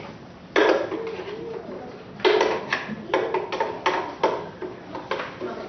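A utensil scraping and knocking against a blender jar as thick blended chickpea mixture is worked out into a bowl. A short squeaky scrape comes near the start, then a run of about seven sharp knocks and scrapes, most of them between two and four and a half seconds in.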